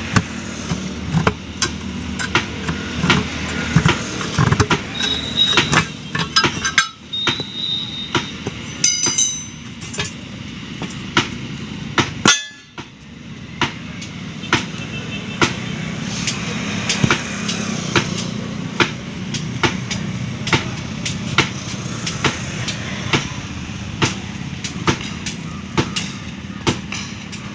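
Steel tyre levers and a hammer knocking and prying on a truck wheel's steel rim and split lock ring while the tyre is taken off for a puncture repair. It makes a run of sharp, irregular metal-on-metal clanks, a few ringing briefly, over a steady low rumble.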